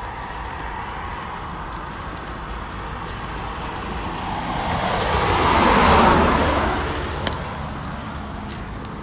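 A car passing on a wet road, its tyres hissing on the wet tarmac. The sound swells as it approaches, peaks about two-thirds of the way through, and fades as it goes by.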